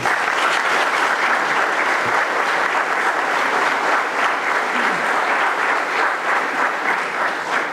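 Audience applauding steadily, dense clapping from a seated crowd after a speech.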